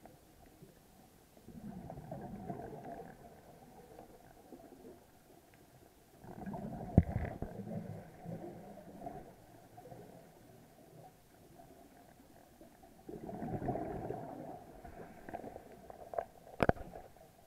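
Three gurgling bursts of bubbles, several seconds apart, from a scuba diver exhaling through the regulator underwater. A sharp click near the end.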